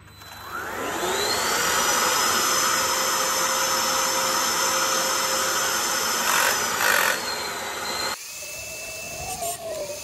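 Electrolux Well Q6 cordless stick vacuum switched on for a test run after its jammed turbo nozzle was cleaned. The motor whine rises over about a second, then settles into a steady, loud run. About eight seconds in the sound cuts abruptly to a quieter whine that wavers in pitch.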